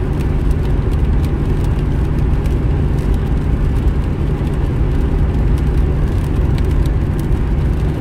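Steady low road and engine rumble inside a car cruising along a wet motorway, with tyre hiss from the wet surface and faint scattered ticks.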